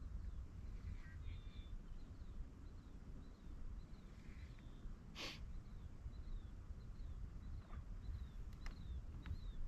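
Quiet open-air lake ambience: a low rumble of wind on the microphone, with a small bird giving short, high, falling chirps over and over. A single short hiss sounds about five seconds in.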